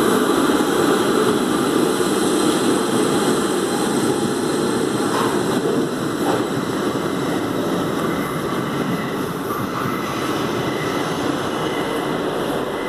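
Steady, loud running noise of an R62A subway train standing at the platform with its doors open, a dense rumble with a faint high hum above it.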